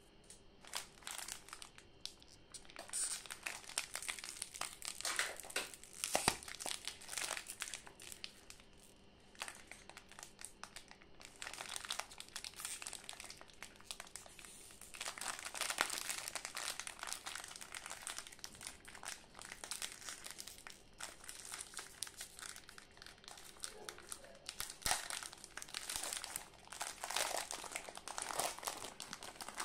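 Plastic wrapper of a Sunfeast Bounce orange creme biscuit packet crinkling in gloved hands, in irregular bursts of crackling, as the packet is handled and torn open.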